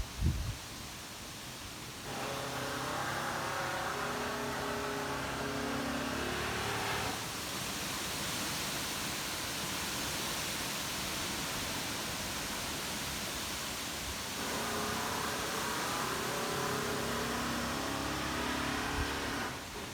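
Strong storm wind rushing steadily for most of the stretch, after a couple of low thumps at the start. Two spells of overlapping ringing tones at several pitches sound over the wind.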